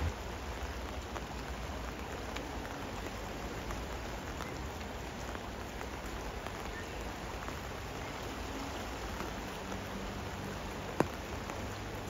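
Steady rain falling, with many small drop ticks close by and a single sharp tap about eleven seconds in.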